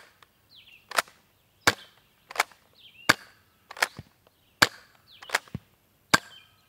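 Adventure Force Blitz 6 foam-dart revolver being primed and fired over and over: about eight sharp plastic clacks, evenly spaced roughly every 0.7 seconds. It is firing Adventure Force Waffle darts, which the shooter says don't seal properly in its short barrels when used, giving poor shots.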